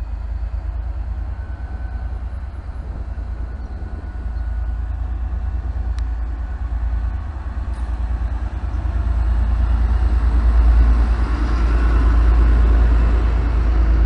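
V/Line N-class diesel-electric locomotive engine running with a deep, steady rumble that gets louder from about nine seconds in.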